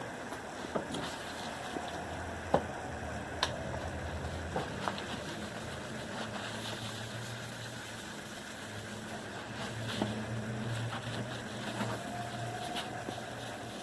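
A low engine hum, like a vehicle idling, whose pitch steps up about four seconds in, with scattered sharp clicks and light knocks over it.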